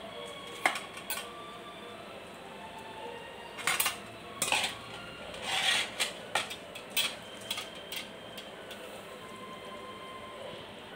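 Kitchen utensils clinking and knocking against an earthenware cooking pot as pieces of fish are put into a simmering curry. There are scattered light knocks, two about a second in and most of the rest between about four and eight seconds in.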